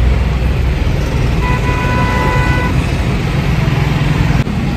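Steady rumble of road traffic, with a vehicle horn honking once for a little over a second, about a second and a half in.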